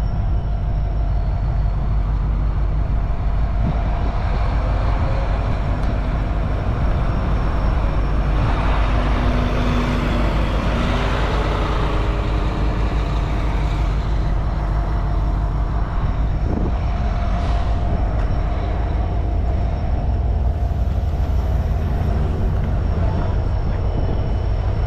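Street traffic: a steady low rumble, with a coach bus driving past, its noise swelling and fading between about eight and thirteen seconds in.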